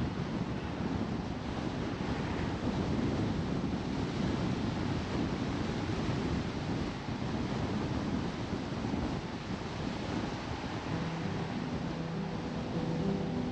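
Steady wind rush on the microphone over the low rumble of a car driving along a paved road. Faint music with held notes comes in about eleven seconds in.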